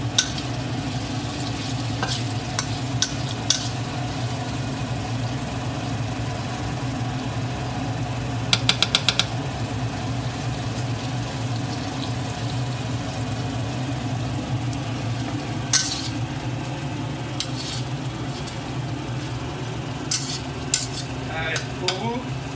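Spatula stirring and scraping dried chillies and garlic round a wok as they fry gently in oil with a light sizzle, over a steady low hum. The spatula clicks against the pan now and then, with a quick run of about six taps about halfway through.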